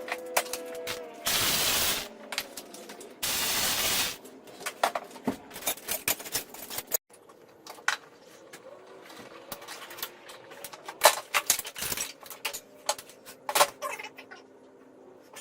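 Hand tools and metal parts clinking and clanking in a car's engine bay while the turbo's oil drain line is disconnected. There are two short bursts of loud hiss in the first few seconds, followed by many scattered clicks and knocks.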